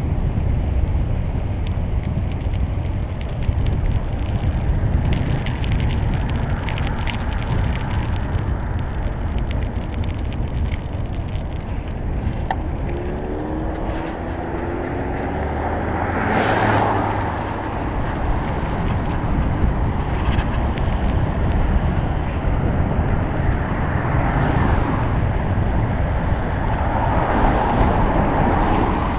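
Steady wind rush buffeting an action camera's microphone while riding a bicycle on the road. Passing traffic breaks through it: a rising engine note a little before halfway, a car swishing past just after, and more cars going by near the end.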